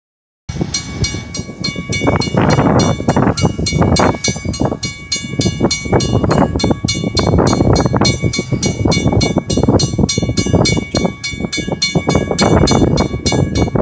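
Loud, uneven gusts of wind buffeting the microphone over the sound of a diesel locomotive running light as it approaches from a distance.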